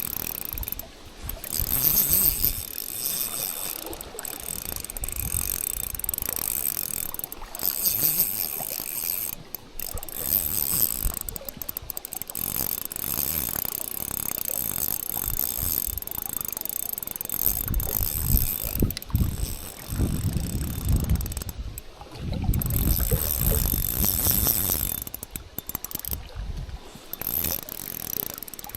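Spinning reel at work, its gears and ratchet mechanism whirring and clicking, with gusts of wind buffeting the microphone in low rumbles through much of the second half.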